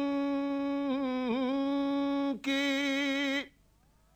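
Male voice singing a naat, holding one long note with slight wavers, a brief break about two and a half seconds in, then stopping about three and a half seconds in.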